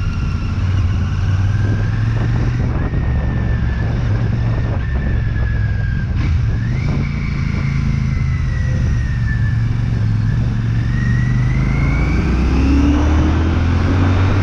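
Royal Enfield Shotgun 650's parallel-twin engine running under way. Its pitch sags and climbs with the throttle, steps up about halfway through, and rises near the end as the bike accelerates.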